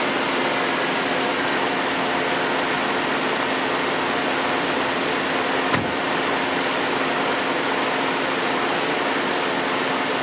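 2002 Mazda Protege 5's four-cylinder engine idling steadily, with no belt squeak to be heard, and a single click about six seconds in.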